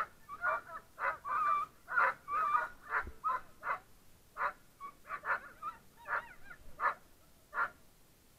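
Harnessed sled dogs, Eurohounds, giving short, harsh yelps and barks over and over, about two a second, in eager excitement while held at the start of a run.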